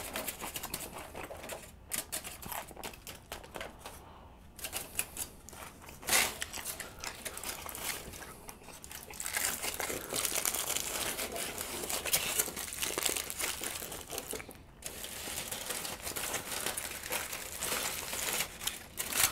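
Aluminium-foil burrito wrappers crinkling and being crumpled by hand close to the microphone. The crackling is sparse at first and becomes denser and more continuous from about nine seconds in.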